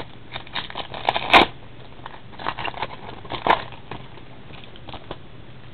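Trading cards and pack wrappers being handled: bursts of crinkling and rustling, the sharpest about one and a half seconds in, another cluster about three and a half seconds in.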